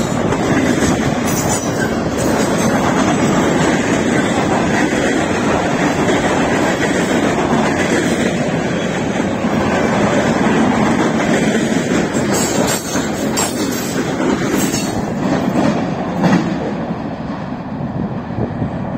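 Freight train cars rolling past close by: a steady rumble of steel wheels on rail, with sharp clicks from the wheels crossing rail joints. The sound fades near the end as the last car pulls away.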